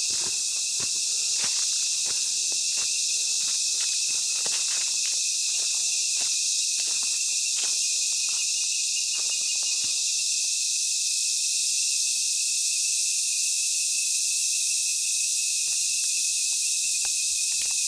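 Dense dusk chorus of tropical rainforest insects: a steady, high, shrill hiss with a steady high-pitched trill just beneath it. Scattered sharp clicks come through the first half, then thin out.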